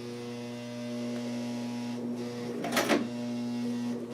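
Vintage Singer Stylist 418 zigzag sewing machine running, its motor giving a steady whine as it stitches through thick layers of leather and denim, at a speed set by a knee control that is hard to keep slow.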